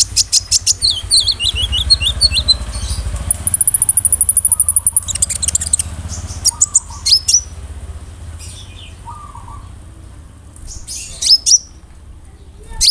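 Kolibri ninja sunbird singing: quick series of high, sharp chirps, a fast even trill about three and a half seconds in, then sparser calls. A steady low hum runs underneath.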